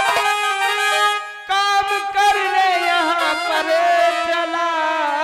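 Live stage music: a melody of long held notes with a reedy, harmonium-like tone played on an electronic keyboard. The notes break off briefly about a second in, then carry on.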